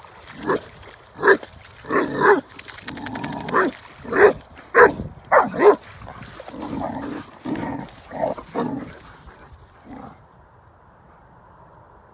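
A dog barking repeatedly, a quick irregular run of loud barks that stops about ten seconds in.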